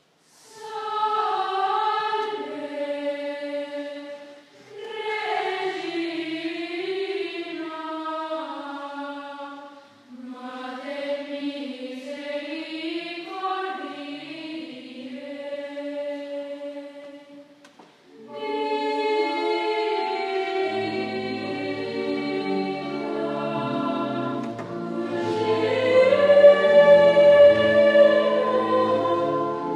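Children's choir singing a slow melody in unison, in three phrases with short pauses for breath. About two-thirds of the way through the singing comes back fuller, lower parts join in harmony, and it grows louder near the end.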